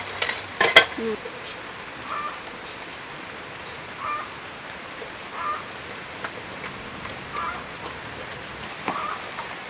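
Short calls, most likely from an animal, recur about every second and a half over a steady hiss. A couple of sharp clicks come in the first second; these are the loudest events.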